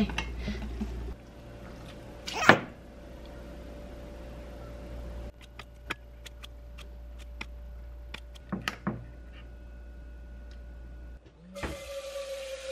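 A plastic food container's lid clip opened with one loud clack, then kitchen scissors snipping kimchi in a run of sharp clicks. Near the end a kitchen tap runs into a stainless steel pot, a steady hiss with a slowly falling ringing tone.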